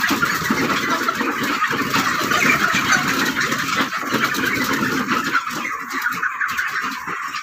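Hand-pushed poultry litter-raking machine, its tines dragging and scraping through the litter, over the steady chatter of a broiler flock.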